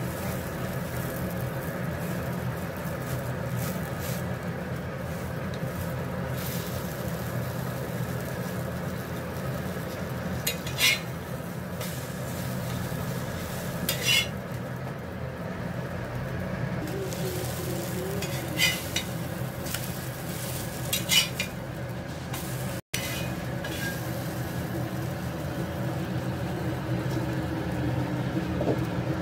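Egg paratha frying on an iron tawa while a steel spatula knocks and scrapes against the pan in four short clatters as the paratha is turned, over a steady low hum.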